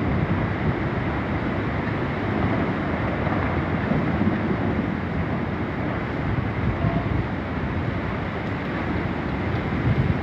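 Hurricane-force wind blowing steadily, with the gusts buffeting the microphone into a low rumble.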